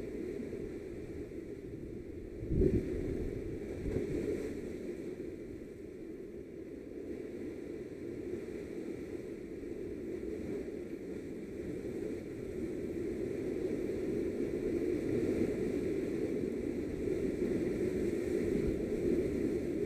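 Steady rushing noise of the sea washing against the rocks, growing gradually louder over the second half, with one sharp thump about two and a half seconds in.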